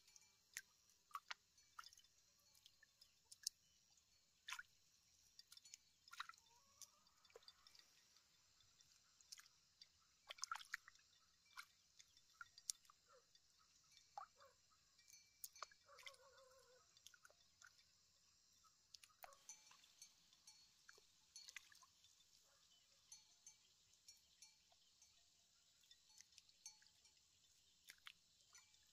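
Faint, scattered drips, splashes and squelches of water and wet mud as hands push rice seedlings into a flooded paddy, one small sound every second or so.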